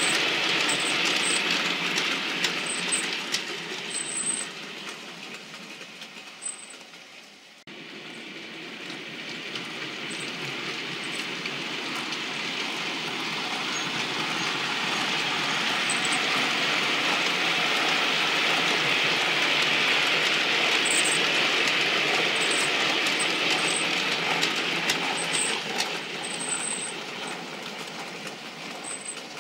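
OO gauge model trains running on the layout's track with a steady rumble and light clicking. A rake of goods vans fades away, then after a sudden cut a model diesel shunter approaches, grows louder as it passes and fades near the end.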